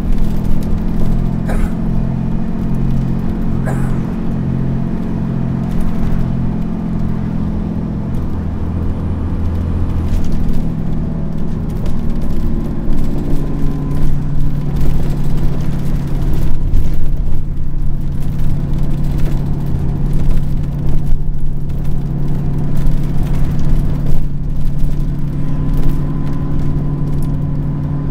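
Dennis Trident double-decker bus engine running hard under load, heard from inside the bus as a loud, steady drone. The engine note changes about halfway through.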